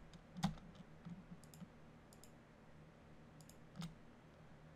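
Scattered sharp clicks of a computer mouse and keyboard being worked, about a dozen in all. The loudest comes about half a second in and another strong one near the end.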